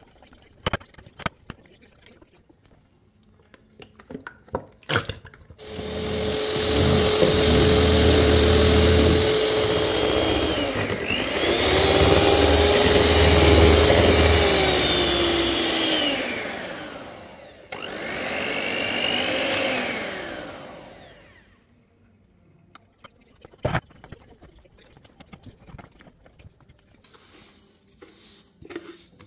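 Electric hand mixer whipping cream, its motor running loudly for about fifteen seconds, its pitch dipping and rising as the speed changes, with two brief breaks. A spatula scrapes and clicks against a bowl before the mixer starts.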